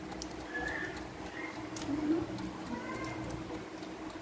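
A baby macaque sucking milk from a bottle, giving a few faint, short high squeaks, over a steady low hum.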